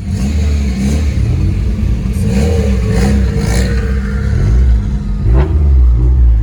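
Car engine revving, its pitch rising and falling several times, with a sharp click about five seconds in.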